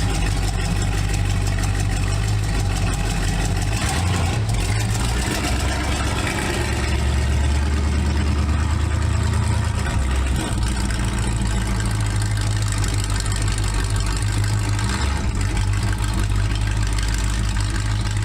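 Z28 Camaro race car's engine idling steadily, its low note shifting briefly about four seconds in and again for a few seconds around the middle.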